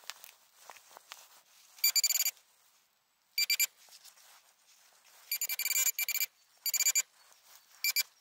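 Handheld metal-detecting pinpointer sounding in short bursts of high, fast-warbling beeps as its probe is swept through loose soil, signalling metal near the tip. Between bursts there is soft scraping of soil.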